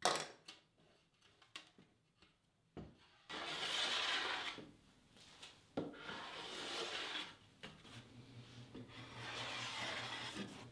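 Block plane shaving along the edge of plywood, smoothing iron-on birch edge banding: a few light clicks, then three long scraping strokes of a second or two each.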